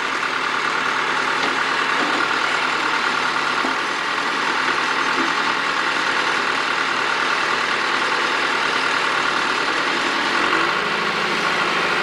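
Tractor-loader-backhoe engine running steadily while the backhoe arm is worked; the engine note shifts slightly about ten and a half seconds in.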